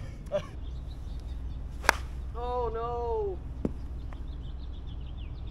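A single sharp click of a golf ball being struck on the green, followed by a man's drawn-out 'ooh' that falls in pitch at its end.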